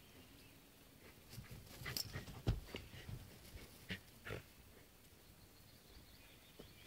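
A dog making a series of short, sudden sounds while playing with a soft teddy bear held in its mouth; they come between about one and four and a half seconds in, the loudest about two and a half seconds in.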